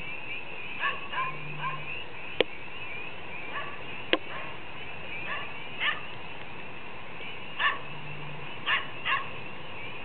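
Pond frogs calling in a dense chorus of short, high-pitched peeping notes. Several louder short calls break out above the chorus, and there are two sharp clicks, one about two and a half seconds in and one about four seconds in.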